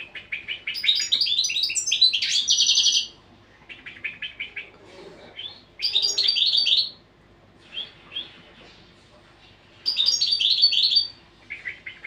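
European goldfinch singing: phrases of rapid, high twittering notes with short pauses between them. The first phrase runs about three seconds, and four or five shorter ones follow.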